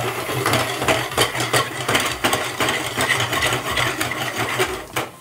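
Mushroom roast sizzling in a pan while a metal ladle stirs and scrapes it, with many small clicks and a steady low hum underneath. The sound cuts off abruptly near the end.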